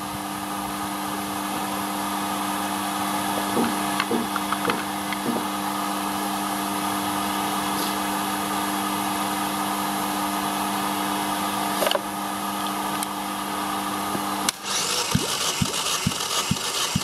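A Chevrolet Lacetti 1.4 L 16-valve F14D3 engine being turned over by a motor for a compression test on its third cylinder, a steady mechanical running that cuts off suddenly about fourteen and a half seconds in. A run of light knocks, about three a second, follows.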